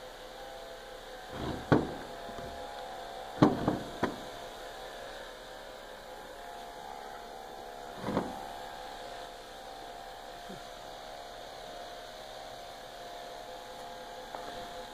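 3 lb melty-brain combat robot spinning steadily on its own, a constant hum, while it gets no input from the transmitter: a runaway spin that will not stop. A few sharp knocks from handling sound about two, three and a half, four and eight seconds in.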